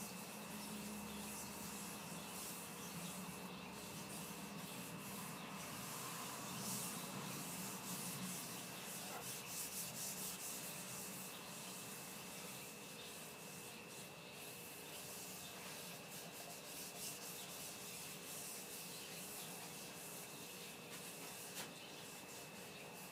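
A cloth rag rubbing mineral oil into a maple and mahogany cutting board: repeated back-and-forth wiping strokes of cloth on oiled wood, busiest about a third of the way in.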